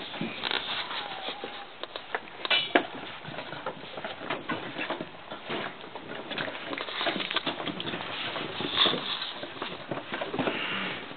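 Cavalier King Charles spaniel puppies tussling on wooden deck boards: a dense, irregular patter of paws and claws tapping and scrabbling on the wood.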